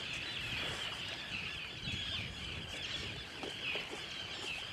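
A flock of seabirds calling without a break, many high, wavering calls overlapping, over a low rumble.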